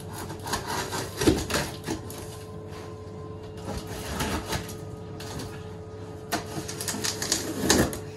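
Knife cutting packing tape along the seams of a cardboard box: several runs of scratchy slicing and crackling cardboard, the loudest about a second in and near the end, over a faint steady hum.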